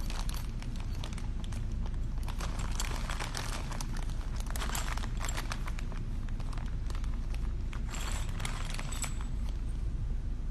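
Watchmaker's lathe accessories and their packing being handled while unpacked: scattered light clicks and knocks of small metal parts and wrapping, over a steady low hum.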